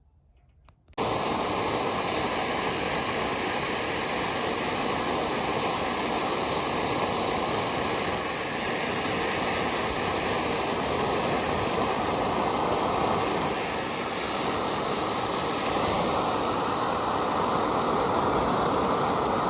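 Hot-air plastic welding gun blowing steadily, preheating the plastic. It cuts in suddenly about a second in, after near silence, and holds an even rushing noise.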